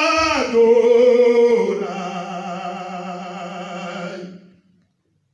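A voice singing a Hebrew psalm, holding long notes that step down in pitch twice, the last note held and fading out about four and a half seconds in.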